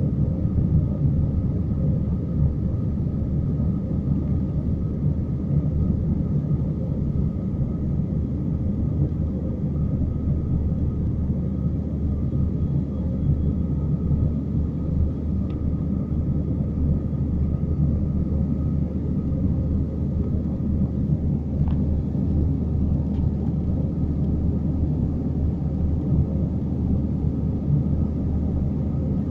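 Airbus A319 cabin noise during the climb after takeoff: a steady low rumble of the jet engines and the airflow past the fuselage, with a faint steady whine above it.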